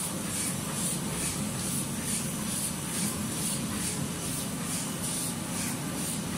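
Interfold dispenser napkin machine running at speed: a steady mechanical hum with a hissing beat about twice a second.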